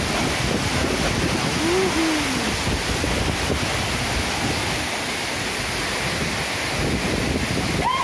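Steady, loud rush of a waterfall heard up close, an even roar of falling water hitting its pool.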